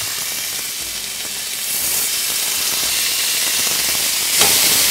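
Beef sizzling in hot olive oil as pieces are laid one by one into a stainless steel pan to sear. The sizzle swells about two seconds in and again near the end, as each new piece goes in.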